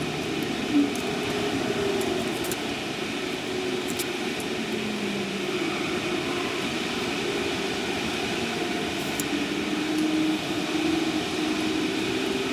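Steady hum of freeway traffic, with the drone of passing vehicles rising and falling, and one sharp click a little under a second in.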